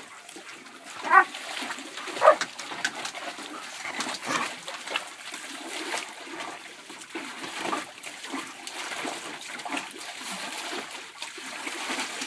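A dog splashing and pawing at the water of a plastic kiddie pool, with two short loud barks about one and two seconds in.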